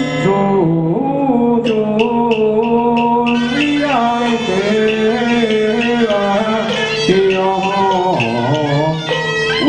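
Traditional Taiwanese Taoist ritual music: a melody of long held notes stepping up and down over a steady low tone, with a short run of light percussion strikes about two seconds in.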